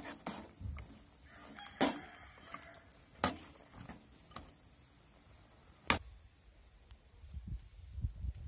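A metal ladle stirring a thick chicken curry in an aluminium pot, with three sharp metallic knocks of the ladle against the pot spread across the stretch and lighter scraping ticks between them.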